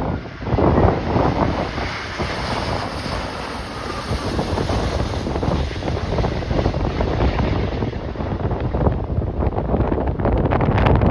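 Storm-force wind gusting and buffeting the microphone in irregular low thumps. A higher rushing hiss swells and fades over the first half.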